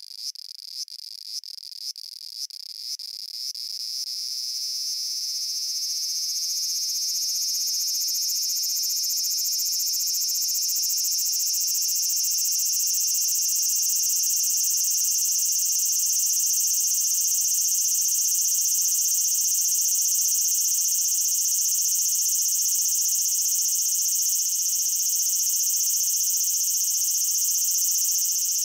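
Cicada song: a few separate high buzzing pulses, about two a second, that speed up and swell over the first few seconds into a loud, continuous high-pitched drone.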